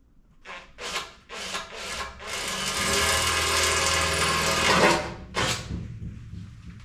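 Power drill boring a hole through the painted sheet-metal engine-bay panel: a few short trigger pulses, then a steady run with the motor whining for about three seconds, and one more short burst near the end.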